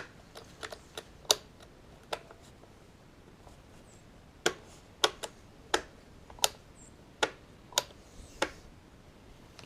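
Irregular light clicks and taps, about a dozen spread unevenly over several seconds, with quiet hiss between them.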